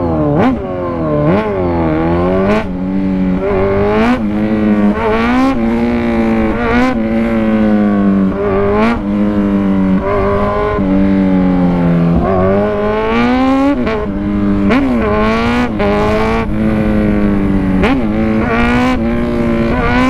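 Kawasaki Z1000R inline-four engine revving under the rider, its pitch climbing and then dropping back about a dozen times as it accelerates and eases off. A low wind rush runs beneath it.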